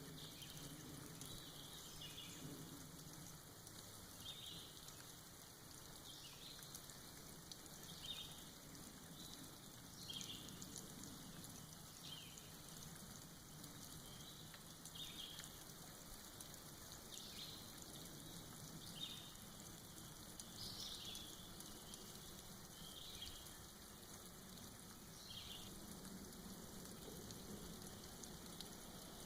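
Soft rain falling and dripping off moss in a forest, a faint steady patter, with short high chirps every second or two.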